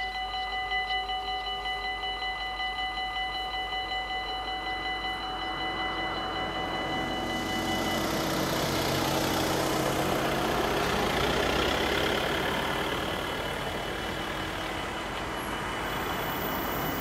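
Dutch automatic level-crossing bells ringing in rapid, even strokes, stopping about eight seconds in. A train then approaches and passes with rising wheel and rail noise that peaks about twelve seconds in.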